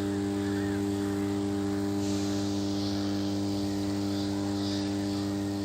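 Extra-high-voltage substation power transformer humming: a deep, steady hum with several evenly spaced overtones. It is caused by magnetostriction, the iron core expanding and contracting with the alternating magnetic field, so the hum sits at twice the mains frequency.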